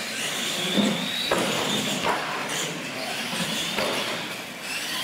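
Electric motors of radio-controlled monster trucks whining as the trucks race, the pitch climbing twice. Two sharp knocks come about a second apart, echoing in a large hall.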